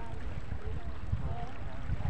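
Wind buffeting the microphone in a steady low rumble, with faint distant voices of a crowd wading in shallow water.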